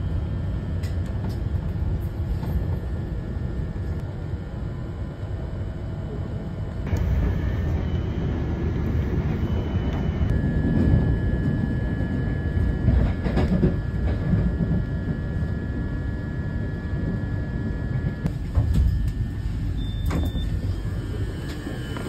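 Matangi electric commuter train running, heard from inside the car: a steady low rumble of wheels on rails. A steady high whine comes in for several seconds in the middle.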